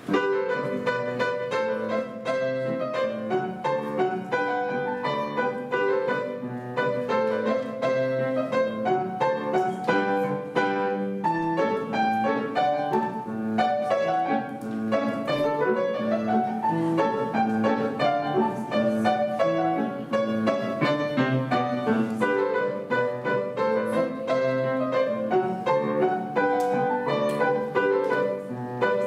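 Piano duo playing a classical piece, a dense run of quick struck notes with chords underneath, starting abruptly with the first note.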